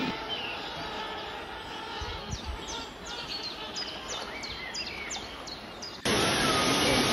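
Small birds calling repeatedly with short, high, downward-sweeping chirps over the steady hiss of a flowing river. About six seconds in, the sound cuts abruptly to the much louder, steady rush of a waterfall.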